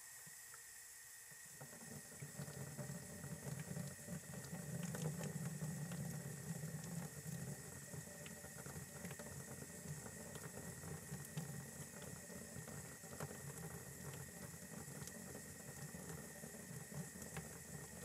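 Faucet running hot water at a reduced flow into a shop sink, a steady splashing that grows heavier about a second and a half in.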